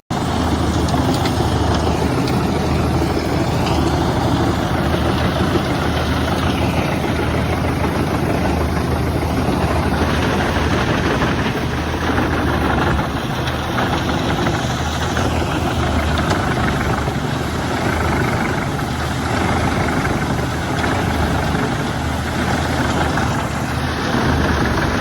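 Large wood chipper and the heavy diesel engine driving it, running loud and steady with a deep rumble.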